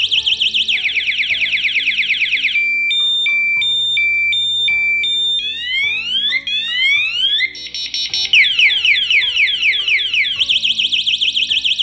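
12 V electronic police-style siren sounding and cycling through its tones: a fast warble, a slower wail, a two-note hi-lo, repeated rising whoops, a brief rapid stutter, then fast sweeps and back to the warble. It is loud and high-pitched throughout.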